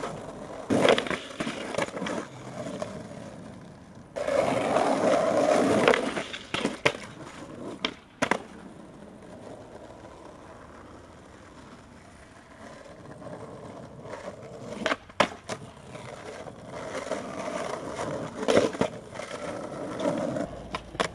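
Skateboard wheels rolling over asphalt, loudest for a couple of seconds near the middle, with several sharp clacks of the board hitting the pavement as it pops and lands.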